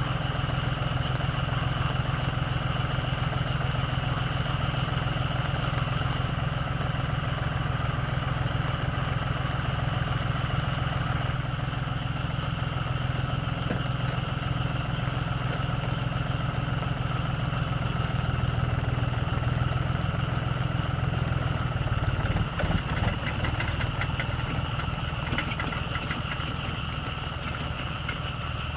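Small four-wheel tractor's engine running steadily. About three-quarters of the way through its sound changes as the tractor moves off, and it grows a little fainter near the end as the tractor drives away.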